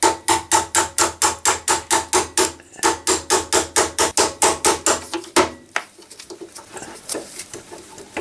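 A hammer rapidly striking a steel pin punch, about five ringing metallic blows a second, driving the rusted pivot axle out of a 1954 Panhard Dyna Junior's front suspension pivot. The blows pause briefly under three seconds in and stop about five and a half seconds in, followed by a few lighter metal clinks.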